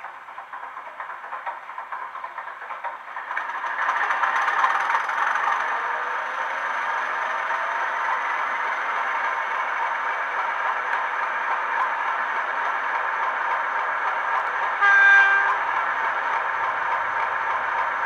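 Sound decoder in a Hornby Class 31 model locomotive, playing Legomanbiffo's Class 31 diesel engine sound through a small bass-enhanced speaker. The engine starts up and builds over the first few seconds, then settles into a steady idle. About fifteen seconds in comes one short horn blast.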